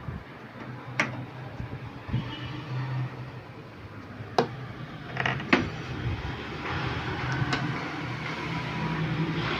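Scattered sharp clicks and knocks from a desktop PC case being opened by hand, over a steady low hum.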